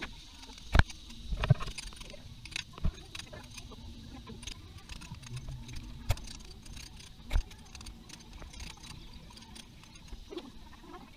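Feathers being plucked by hand from a wet turkey in a basin: a light handling and rustling sound, broken by about five sharp knocks, the loudest about a second in.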